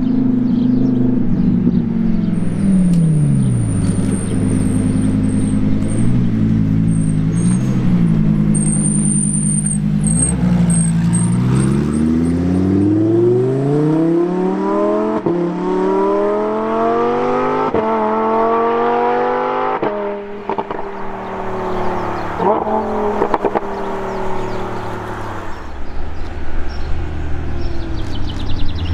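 Supercar engine revving: the revs fall away, a few short blips follow, then a long pull with the pitch climbing steadily for several seconds as the car accelerates. About two-thirds of the way through it drops suddenly, then runs on at lower revs.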